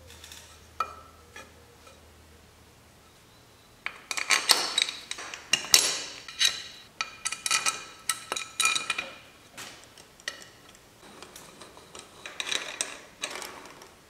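Metal objects clinking and clattering against each other in quick runs of ringing knocks, starting about four seconds in and going on until near the end, after a single sharp click less than a second in.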